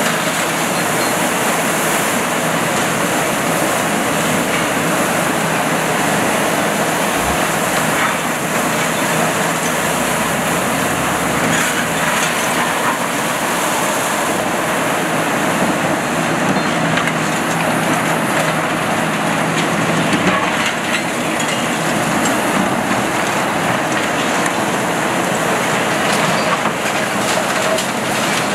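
Diesel engine of a Kiesel KTC 390 demolition excavator running steadily, with the grinding and crunching of demolition rubble and a few scattered knocks.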